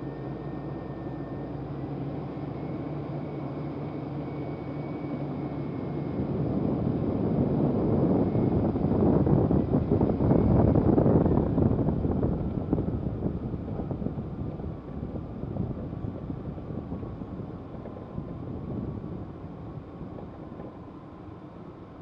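Vehicle engine running with a steady hum, growing louder to a peak about ten seconds in, then fading away.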